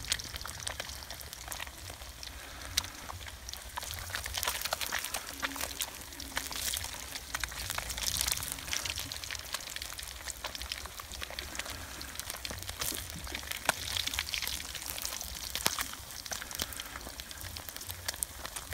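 Fish frying in hot oil, a steady dense crackle of small pops and spatters.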